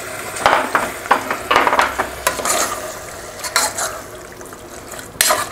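A spoon stirring and scraping duck pieces in masala inside a pressure cooker, giving irregular scrapes over a steady sizzle of the hot masala and freshly added water.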